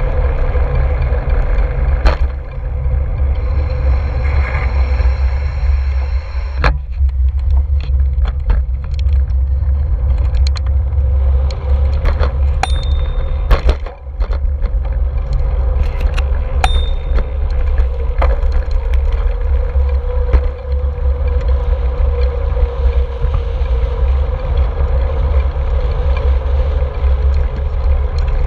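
Wind buffeting a GoPro's microphone on a moving road bike, a loud steady low rumble with tyre and road noise under it. Scattered sharp clicks and rattles from the bike, and a few short high pings.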